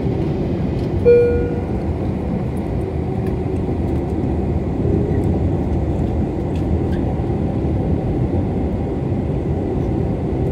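Steady low rumble of a Boeing 747's engines and running gear heard from inside the cabin as the jet taxis. A short bright chime-like tone sounds about a second in.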